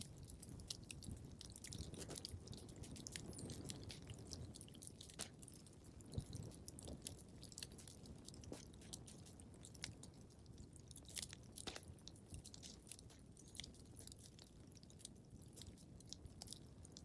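Wood fire crackling in a fireplace: irregular small pops and snaps over a low, steady rumble of the flames, with a couple of louder pops about six and eleven seconds in.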